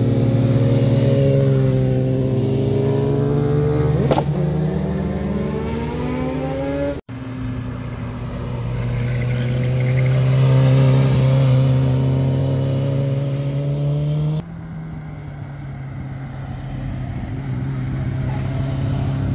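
Motorcycle engines rolling through a hairpin bend, one bike after another. Each engine note holds steady or glides up and down in pitch through the corner. The sound breaks off abruptly twice, about seven and fourteen seconds in, where one bike's clip is cut to the next; the last bike is a red Yamaha sport bike.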